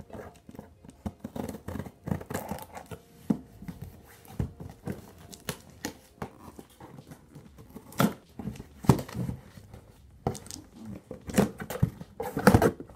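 Scissors slicing through packing tape on a cardboard shipping box, then cardboard flaps scraping and rustling as the box is pulled open: irregular scrapes and clicks, loudest near the end.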